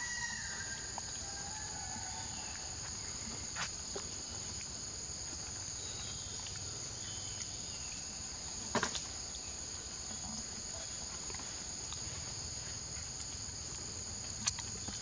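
Steady high-pitched drone of insects, with a rooster's crow fading out at the very start and a few faint clicks.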